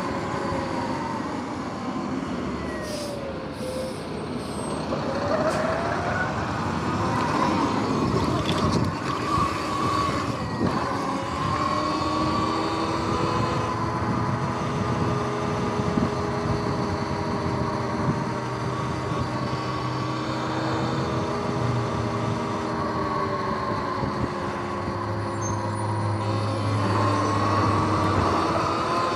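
Sur-Ron X electric dirt bike under way: the whine of its motor and chain drive rises and falls in pitch with speed, over wind and tyre noise.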